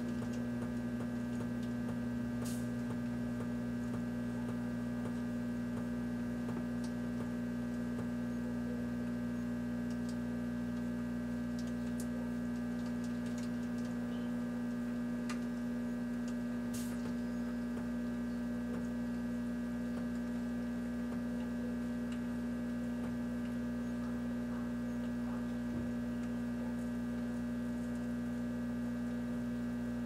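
Microwave oven running, a steady electrical mains hum with a few faint clicks.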